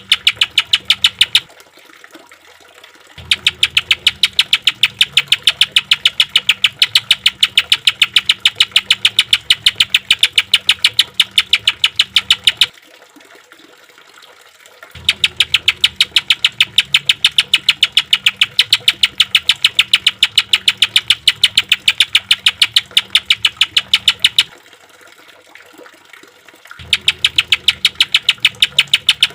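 Greater green leafbird (cucak ijo) giving harsh, rapid-fire call notes ('tembakan'), a fast even rattle of sharp clicks several a second. It comes in bursts of about nine seconds broken by short pauses of about two seconds, twice.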